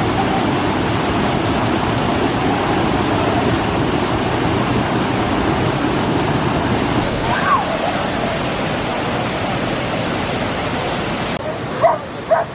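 Waterfall: a steady, loud rush of falling water, with a few short, high yelps near the end.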